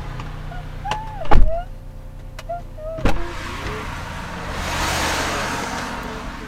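Steady low hum inside a stationary car, broken by two loud sharp knocks about two seconds apart, with short high chirps and a brief rush of hiss just past the middle.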